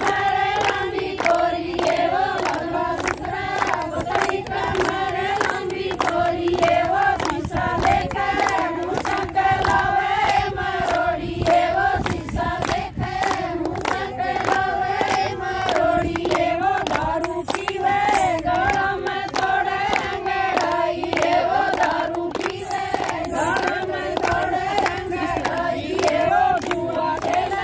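A group of women singing a Haryanvi folk song together, with steady hand clapping keeping the beat.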